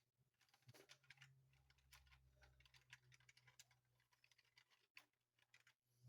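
Near silence, with faint scattered small clicks and taps of a plastic toy being handled and cleaned, over a faint low hum.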